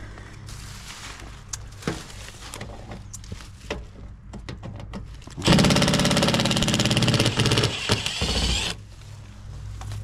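Cordless impact driver running in one burst of about three seconds, rapid hammering over the motor's whine, backing out a screw on a heat pump unit's access panel. The burst starts about five and a half seconds in, after a few light clicks of handling, and stutters briefly just before it stops.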